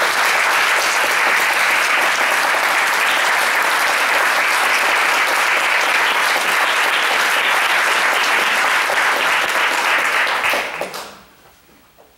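Audience applauding steadily in a recital hall, dying away near the end.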